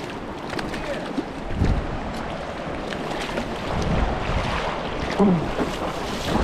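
Steady rush of flowing river water, with wind buffeting the microphone in a couple of low gusts.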